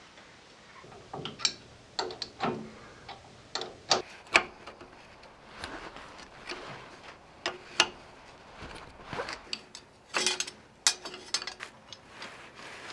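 Irregular metallic clicks and clinks of open-ended spanners and bolts as a bolt-on part is fitted to the front axle housing of a Series 1 Land Rover.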